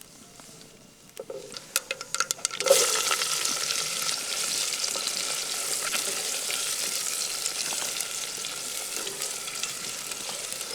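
Hot cooking oil in a pan over a campfire, with a few clicks from a spoon or ladle against the pan, then a sudden loud, steady sizzle about two and a half seconds in as ingredients go into the oil to fry.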